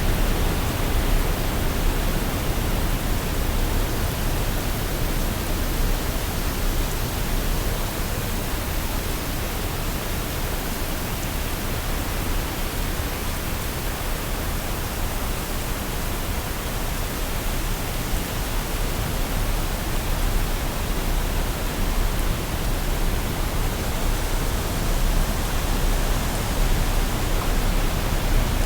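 Waterfall: a steady, dense rush of falling water with a deep low rumble, unbroken throughout.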